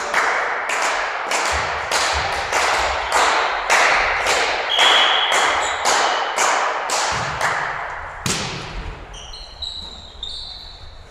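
Steady rhythmic clapping, about two claps a second, echoing in a large sports hall. A short whistle blast sounds about halfway through. The clapping stops about eight seconds in, and a few short high squeaks of sports shoes on the court follow.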